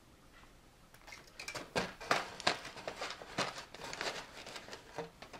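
Handling noise from plastic model-kit parts: an irregular string of small clicks, taps and rustles that starts about a second in.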